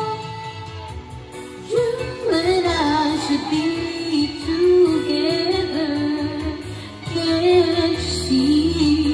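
A woman singing along to a backing music track, close to a condenser microphone; her voice comes in just under two seconds in over the accompaniment and carries the melody.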